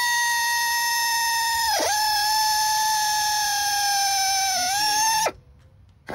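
Right-angle drill running at high speed, a steady whine that sags sharply for a moment about two seconds in as the bit bites, while it drills out the old stripped threads of an exhaust manifold bolt hole in an aluminium cylinder head. The whine stops about five seconds in.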